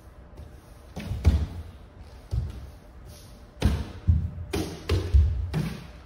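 Hands and knees thudding on a wooden floor as a person crawls over scattered sheets of paper, with the paper rustling and sliding under the hands. About eight irregular thuds, starting about a second in.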